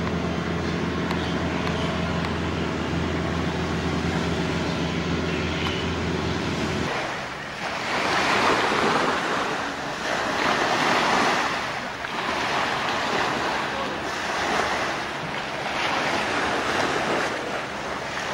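A boat engine runs steadily for about the first seven seconds, then cuts off. Small waves then wash onto a sand beach, swelling and fading every two to three seconds, with wind on the microphone.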